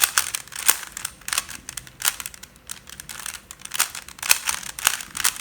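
Plastic Rubik's cube being turned by hand, its layers giving a run of irregular clicks and clacks.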